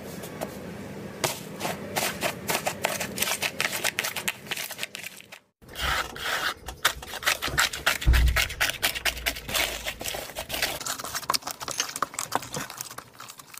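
Hands pressing, squeezing and kneading fluffy slime, with dense irregular crackling and popping from its textured surface. A brief break comes about five and a half seconds in, then the crackling resumes with a soft low thump near eight seconds.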